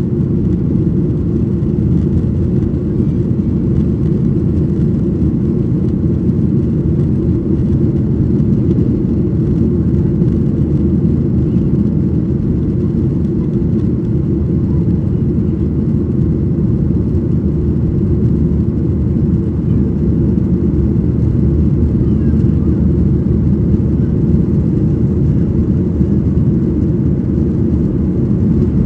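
Cabin noise inside a Boeing 737-800 climbing out after takeoff: the CFM56-7B engines and airflow make a steady low rumble.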